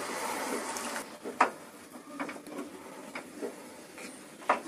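Wooden spatula stirring a watery curry in a nonstick pan: a steady hiss over the first second, then scattered sharp taps of the spatula against the pan.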